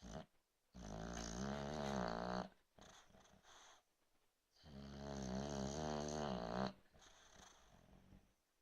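Snoring in two long, rattling snores of about two seconds each, about four seconds apart, with softer breathing between them.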